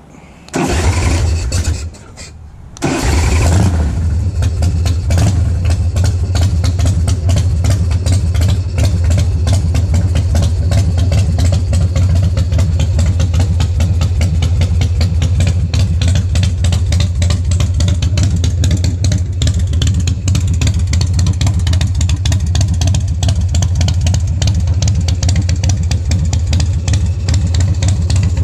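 2005 Big Dog Ridgeback chopper's V-twin engine starting: it fires about half a second in, cuts out briefly around two seconds, catches again just before three seconds and then idles steadily with an even, pulsing beat.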